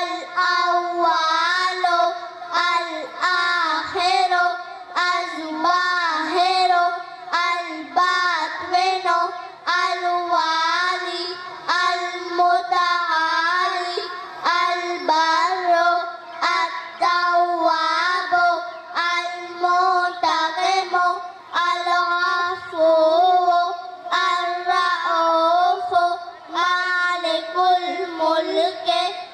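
A single high voice sings a naat, an Islamic devotional poem, without instruments. The melody is drawn out in long, ornamented phrases with brief pauses for breath.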